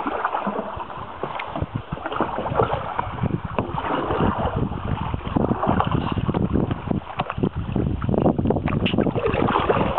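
Canoe being paddled: irregular water splashing and sloshing from the paddles and hull, with wind buffeting the microphone.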